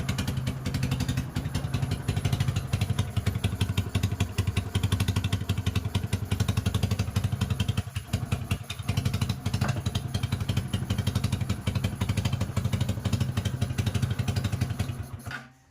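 Motorcycle engine running at idle with a rapid, even firing beat, then cutting off suddenly near the end.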